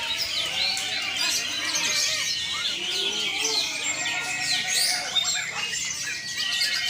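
Several greater green leafbirds (cucak ijo) singing at once, a dense, continuous tangle of overlapping whistles, chirps and trills, as at a songbird contest.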